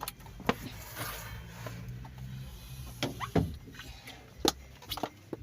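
Scattered clicks and knocks of something being handled, about six in all, with a low hum during the first few seconds.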